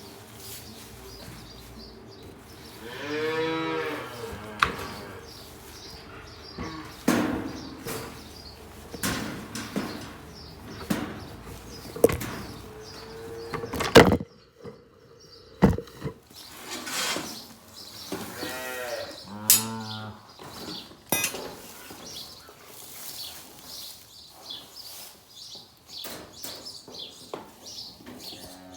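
Dairy calves mooing, two drawn-out calls well apart, among a clatter of sharp knocks and clicks, the loudest of them near the middle.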